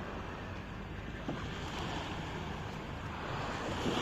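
Steady rush of sea water and wind, swelling a little near the end.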